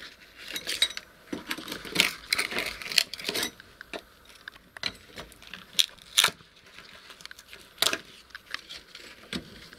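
Rubble and bits of flooring being picked and scraped out of a hole cut in a floor: irregular clinks, scrapes and rattles, with a few sharper clacks about 2, 3, 6 and 8 seconds in.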